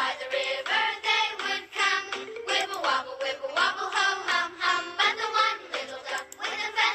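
A children's song sung by voices over a bouncy instrumental backing, with an even beat.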